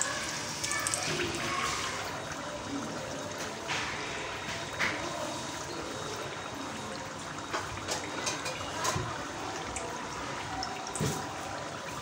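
Spring rolls deep-frying in hot oil: a steady sizzle with scattered sharp pops and crackles.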